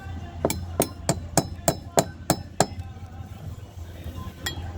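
A caulking mallet striking a caulking iron, driving caulking into a wooden boat's seam: eight sharp, evenly paced blows, about three a second, then a single further blow near the end.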